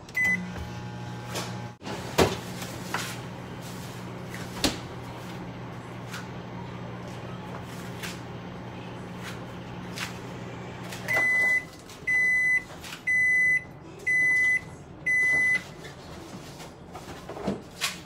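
Microwave oven beeping once as it starts, then running with a steady low hum that stops about eleven seconds in, followed by five high beeps about a second apart signalling the end of the cooking cycle. A couple of sharp clicks sound during the run.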